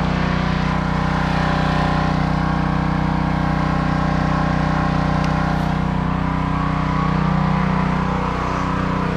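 Northern Tool 3000 psi, 2.5 gpm pressure washer's engine running steadily.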